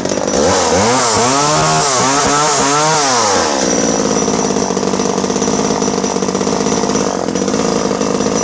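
Danarm 1-36 Mk II vintage two-stroke chainsaw, just started, blipped up and down in revs several times, then running at a steady speed from about three and a half seconds in.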